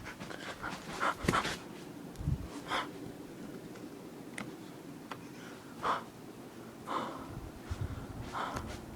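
A person breathing in short, sharp breaths every second or so, with a low thump about two seconds in.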